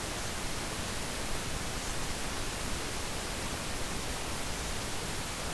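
Steady hiss of recording noise, even and unchanging, with no other sound.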